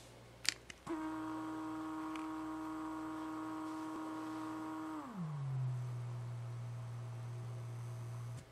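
Somfy Sonesse 28 RTS 12 VDC tubular roller shade motor running: a click, then a steady whine that starts about a second in. A little after five seconds the pitch slides down to a lower steady hum, which stops suddenly near the end.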